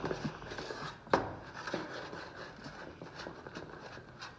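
A fork stirring foamy glue-and-shaving-cream slime in a bowl after the saline activator has been added, with soft scraping and sharp clicks of the fork against the bowl, the loudest about a second in.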